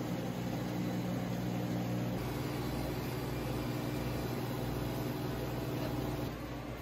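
Self-service automatic coffee machine running its pump and motor while dispensing coffee over ice, a steady mechanical hum. The hum changes pitch about two seconds in and drops a little near the end.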